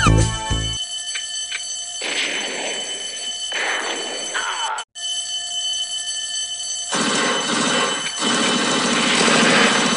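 Electric alarm bell ringing continuously, right after a siren's wail cuts off at the very start. Stretches of loud rushing noise come in over the bell twice, from about two seconds in and again from about seven seconds in.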